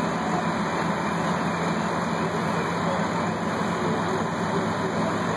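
Steady din of fire apparatus running on the fireground: diesel engines and pumps going without a break, with a steady low hum under a wide hiss.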